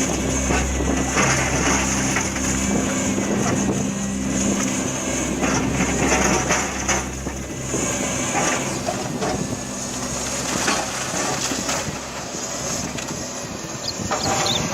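A heavy machine's engine running steadily for the first half, under many dense cracks and knocks of material being broken or crushed.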